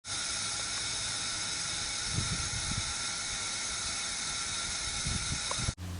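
A steady hiss that cuts off abruptly near the end, with a few faint low knocks under it.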